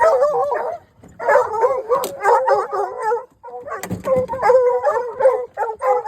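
Several hunting hounds bawling and howling over one another in long, wavering calls, with brief breaks about a second in and again past the middle. This is the excited cry of hounds that have struck a bear's scent.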